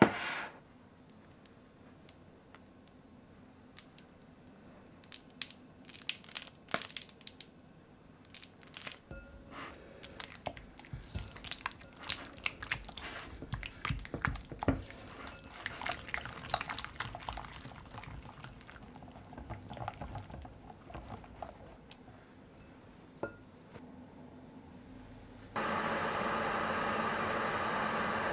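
Silicone spatula mixing soft cream cheese and yogurt in a glass bowl: wet squelching and scraping with small taps on the glass, after a few scattered knocks. Near the end a Panasonic Bistro microwave steam oven starts up and runs with a steady whir, heating a small glass cup of gelatin.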